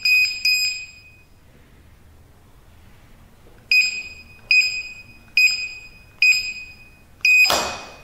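Built-in buzzer of a Retekess T-AC03 keypad access controller giving short, high beeps as keys are pressed: two at the start, then five evenly spaced about a second apart from about halfway. A brief rush of noise follows the last beep near the end.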